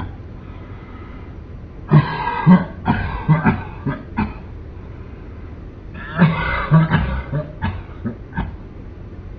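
A man coughing in two bouts, each a run of several short coughs: one starting about two seconds in, the other about six seconds in.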